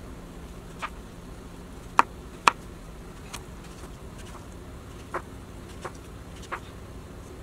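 Kitchen knife slicing a cucumber, each cut a sharp knock, about seven at uneven spacing with the two loudest about two seconds in, over a faint steady hum.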